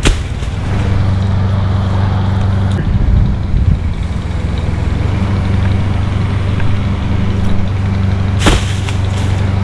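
Gas chainsaw running steadily under load as it cuts into a wet queen palm trunk, the pitch wavering about three seconds in; the climber feels the wet palm is gumming up the bar and chain and making the saw bog down. A sharp knock at the very start and another near the end.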